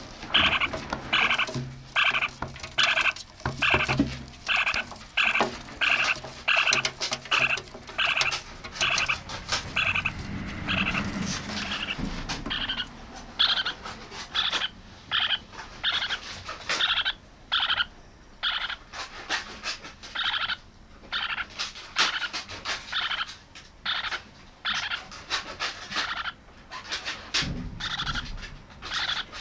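Lineolated parakeet chick calling over and over in short, repeated calls, about two a second at first, then more irregular.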